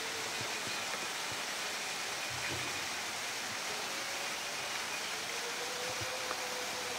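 Steady rushing noise of running water, with a faint wavering hum in the background.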